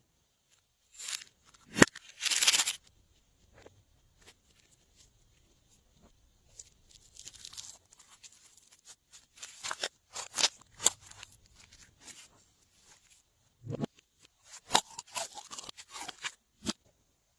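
Glossy slime being squeezed and worked by hand: irregular wet clicks, pops and crackles with short quiet pauses, and a longer noisy squish about two seconds in.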